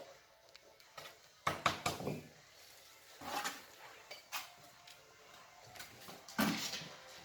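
Bricklaying work: a few separate knocks and scrapes of bricks and mortar being handled, the loudest about one and a half seconds in and again near the end.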